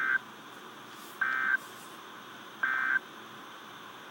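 Three short bursts of warbling digital data tones, each about a third of a second and about a second apart, over steady radio hiss: the SAME end-of-message code that closes a NOAA Weather Radio required weekly test.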